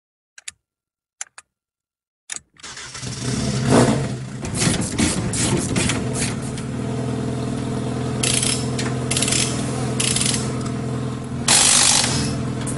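Switch-panel clicks, then the 2011 Ford Fiesta rally car, prepared by Olsbergs MSE, starts about two and a half seconds in and runs at a rough idle. Several short noisy bursts sound over the idle.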